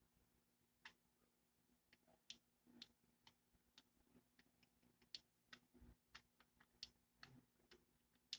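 Pet bird's beak nibbling, a string of faint, sharp, irregular clicks, about two or three a second.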